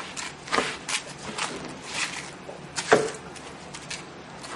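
Stirring raw dolma filling of diced meat, rice and herbs in a bowl: irregular scraping and squishing strokes, with one sharper knock about three seconds in.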